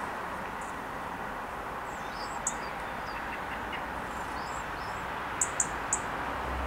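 Steady far-off rumble of steam locomotive 5519 and its train running across the valley. Small birds chirp over it, once about two and a half seconds in and three times in quick succession near the end.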